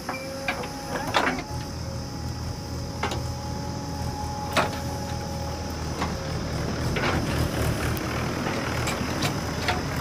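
JCB 3DX backhoe loader's diesel engine running steadily under load with a steady whine, and sharp knocks and clanks every second or two as the bucket digs soil and dumps it into a tractor trolley.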